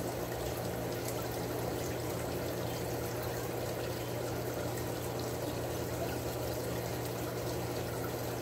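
Aquarium water circulation running steadily: water trickling and pouring with a constant low hum from the pump.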